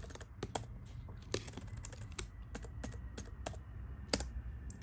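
Typing a password on the keyboard of a late 2009 white unibody MacBook: a run of irregularly spaced key clicks, a few sharper than the rest.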